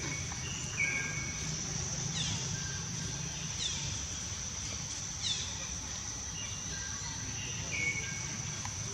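Outdoor forest sound: a steady high-pitched insect drone, with short falling bird chirps repeating every second or so and a few brief whistled notes, over a low rumble.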